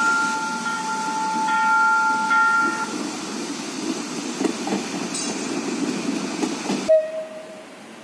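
Two-tone horn of an electric multiple-unit train, a steady chord held for about three seconds. The train then runs by, its wheels clattering over the rails. About seven seconds in the sound cuts off suddenly, followed by a brief lower tone and quieter street noise.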